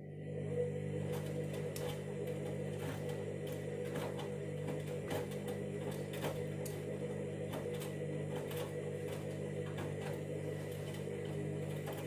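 Candy washing machine's drum motor humming steadily as it turns the drum to weigh the load (the KG detector sensing stage), with irregular clicks over the hum.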